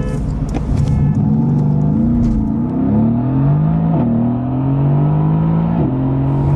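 Car engine under full-throttle acceleration in a drag race, its pitch climbing through each gear and dropping sharply at upshifts about two and a half, four and six seconds in.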